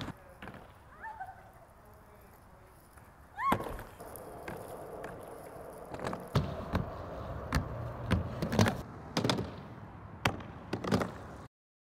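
Skateboard wheels rolling on concrete, with repeated sharp clacks and knocks of the board hitting the ground and a wooden ramp. A short high squeal about three and a half seconds in, and the sound cuts off suddenly near the end.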